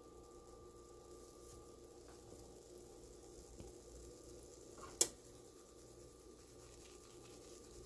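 Faint sizzling and crackling of marshmallow Peeps heating in a dry nonstick frying pan, over a low steady hum. A single sharp click about five seconds in.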